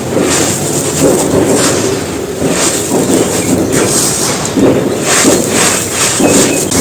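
Soft, dusty bricks being crumbled, with gritty crunching that swells roughly once a second.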